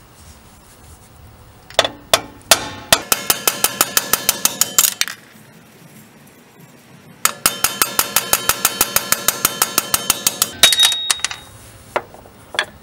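Rapid, evenly spaced metal-on-metal hammering, about seven ringing blows a second, in two runs of about three seconds each, driving worn wheel studs out of a 2015 Nissan Sentra's rear hub. A few single knocks follow near the end.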